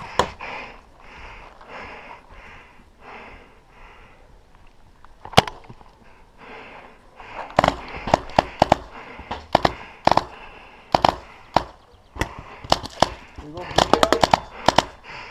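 Paintball markers firing: a lone sharp pop about five seconds in, then bursts of quick shots, several a second, through the second half.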